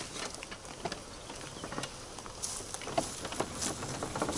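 Solar-charged electric Club Car golf cart driving over rough, dry grass, its tyres crackling and snapping through dry stalks and twigs in irregular clicks. The crackling grows louder as the cart comes close near the end.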